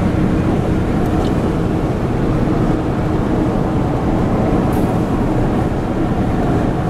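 Steady road and engine noise of a vehicle driving along a highway, heard from inside the cabin.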